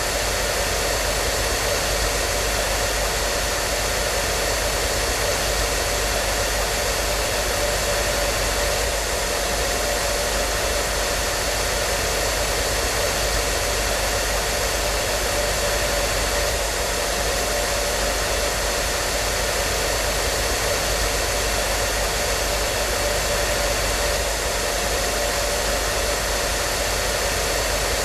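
Hair dryer running continuously on a steady setting: an even rushing hiss of blown air with a faint steady motor hum, unchanging throughout.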